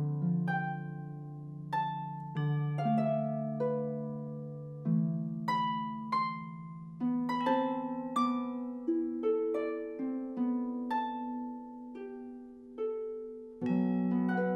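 Medieval harp playing a slow instrumental passage: single plucked notes, each ringing and fading, over lower notes left to ring beneath them.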